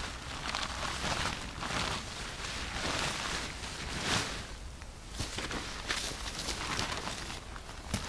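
Footsteps and rustling in dry grass, coming as irregular steps of a few a second.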